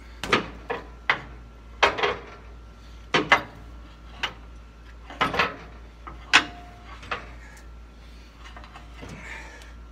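Irregular metal clanks and knocks, about a dozen in the first seven seconds, each ringing briefly, as the skid steer's hydraulic lift cylinder end is worked loose by hand.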